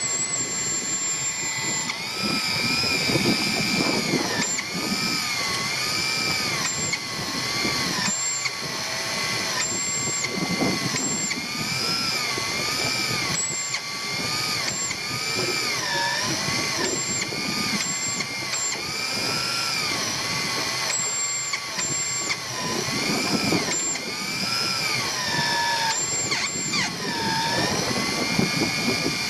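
A small motor whining continuously, its pitch dipping and rising every couple of seconds, with short high clicks now and then.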